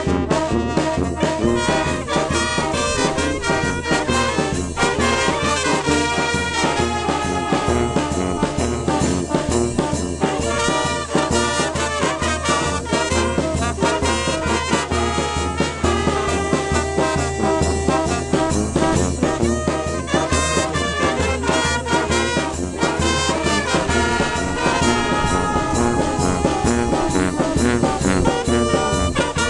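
Mexican brass wind band of trumpets, trombones and alto saxophones playing a lively tune together, with a steady bass line under the horns.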